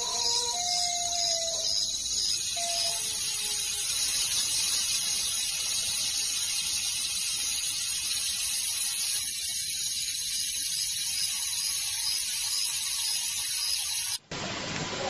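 A loud, steady high-pitched hiss with a faint, regular pulsing in it, and faint wavering tones during the first few seconds; it cuts off abruptly shortly before the end.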